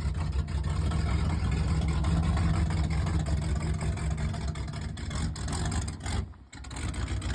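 A vehicle engine running steadily with a deep low rumble, dipping briefly about six seconds in.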